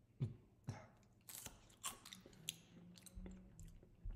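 Close-up crunching as a person chews a burnt, over-fried chip, crisp outside and soft inside. There is a handful of sharp crunches in the first two and a half seconds, then quieter chewing.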